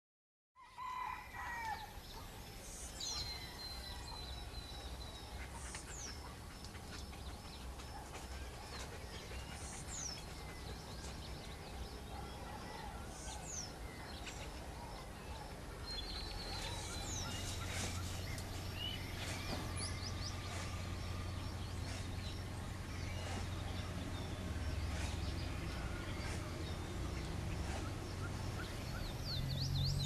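Wild birds calling: a high call that sweeps downward, repeated every three to four seconds, among other chirps and a short trill. A low rumble comes in about halfway through and grows louder.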